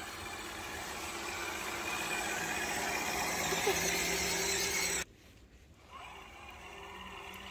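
Small electric motors and gear drives of radio-controlled scale crawler trucks whining steadily as they crawl through mud and shallow water, growing louder, then dropping suddenly to a much quieter level about five seconds in.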